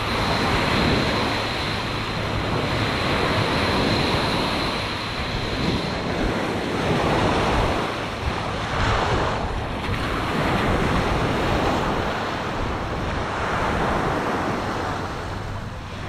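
Ocean surf washing onto the beach, the hiss rising and falling in swells every couple of seconds, with wind buffeting the microphone.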